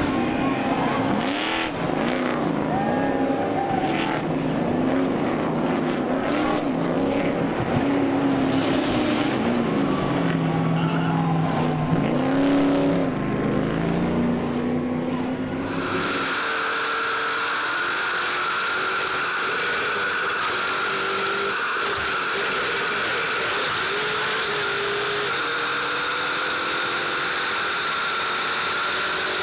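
Stadium Super Trucks race truck engines revving and shifting through a corner and passing, their pitch rising and falling over and over. About sixteen seconds in the sound cuts to a steady, even engine drone heard from inside a truck's cab.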